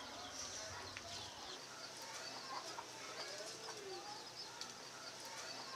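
Many small birds chirping over a faint outdoor background, with one lower call that rises and falls about three seconds in.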